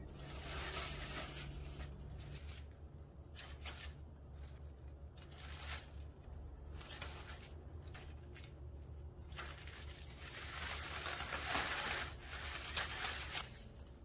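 Dry onion skins and paper rustling as onions are handled in a wicker basket: a few short bursts, then a longer, louder stretch from about ten seconds in.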